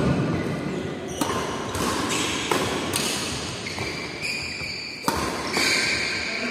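Badminton rackets striking a shuttlecock in a doubles rally: several sharp hits about a second apart, echoing in a large indoor hall.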